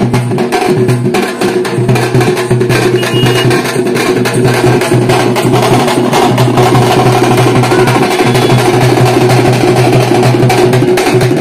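Dappu frame drums beaten with sticks in a fast, dense rhythm, loud throughout.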